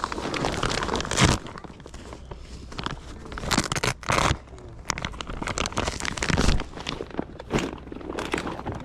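Rustling and crinkling handling noise with scattered knocks and a few louder rustles, as things are picked up and handled.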